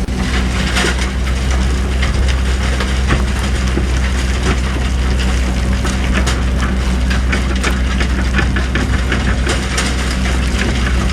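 Hydraulic excavator's diesel engine running steadily with a low hum, under a continuous gritty crackling of the bucket working sand and stones.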